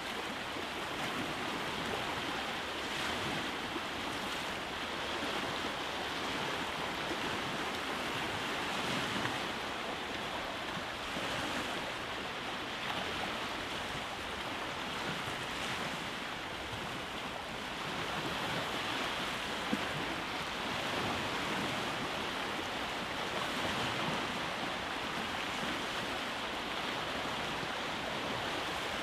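Waves breaking and washing on a rocky shore: a steady rush of surf that swells and eases gently.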